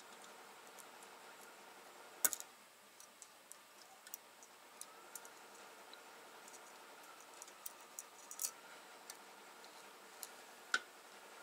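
Faint, irregular small clicks and taps of valve keepers and a valve spring compressor being worked on a VW 12-valve VR6 cylinder head, with a sharper click about two seconds in and another near the end.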